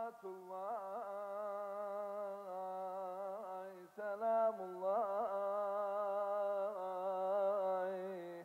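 A male voice singing long, held notes in a Sufi devotional chant, decorating them with quick ornamental turns, with a short breath about four seconds in before the next long phrase.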